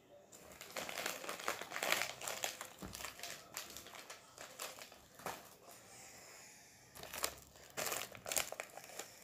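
Foil trading-card pack crinkling and rustling as it is handled, in bursts with a short lull a little past halfway.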